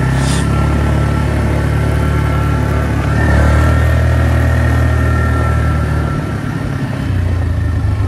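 2000 Polaris Magnum 325 ATV's single-cylinder four-stroke engine running as the quad rides along at low speed. It gets louder about three seconds in, drops back around six seconds and picks up again a second later.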